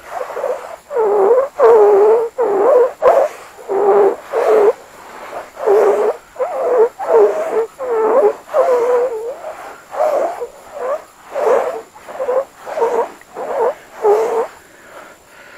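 Singing sand whistling as it is pushed into: a rapid run of short, low whistling tones, about two a second, each wavering in pitch.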